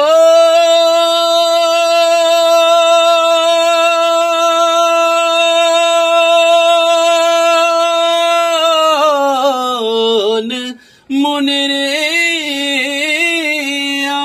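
Unaccompanied male singing of a Bengali gazal (Islamic devotional song). One long note is held steady for about eight seconds, then slides down in wavering ornamented runs. After a brief breath about eleven seconds in, the singing goes on with a curling, ornamented line.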